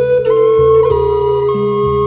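Native American-style flute playing a long held note, with higher notes changing above it, over low ringing struck percussion in a steady beat.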